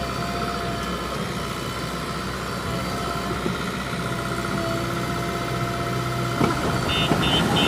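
Heavy construction machinery engine running steadily. Near the end a knock is followed by rapid, evenly spaced beeping, about three beeps a second.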